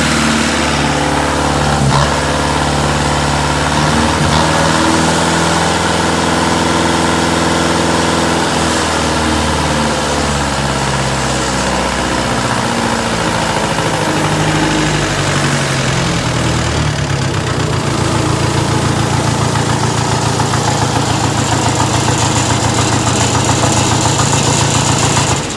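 Diesel engine running, its pitch shifting about halfway through, then settling into a fast, even pulsing beat. The owner suspects a misfire.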